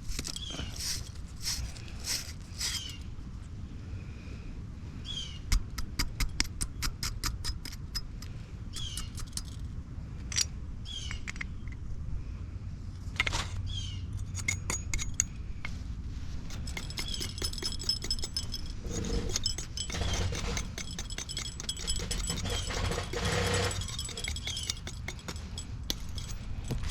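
Copper pipe fittings being scrubbed with a wire brush ahead of soldering: runs of quick scratchy strokes with metallic clicks and clinks as the fittings are handled.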